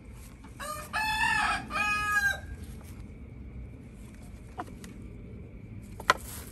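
A rooster crowing once, about half a second in: a drawn-out call in two parts. Near the end, a single sharp knock.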